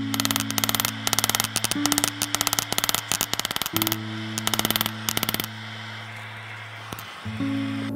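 Background music with steady low notes over a fast run of sharp, ringing strikes of a hand hammer on hot steel against an anvil, about ten a second, stopping about five and a half seconds in.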